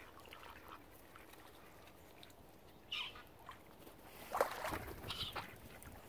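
Mallard ducks calling: a few short, scattered calls, the loudest about four and a half seconds in.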